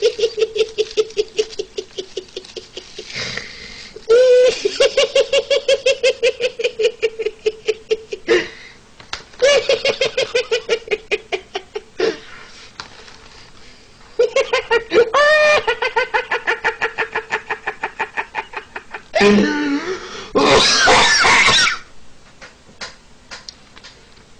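A man's high-pitched, rapid giggling laughter in about five long runs of quick, even pulses, roughly eight a second, broken by short pauses for breath; a harsher, breathier run comes near the end.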